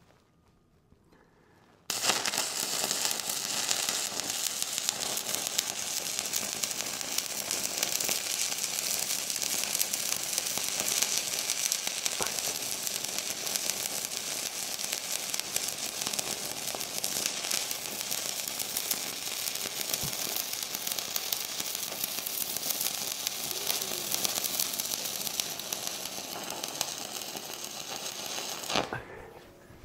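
Stick-welding arc burning a 3/32-inch 7018 rod at about 100 amps, a steady crackle that starts about two seconds in and cuts off sharply just before the end.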